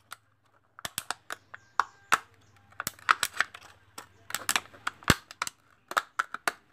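Thin plastic water bottle crackling and crinkling in the hands as it is worked and trimmed with a small pocket knife: irregular sharp crackles and clicks.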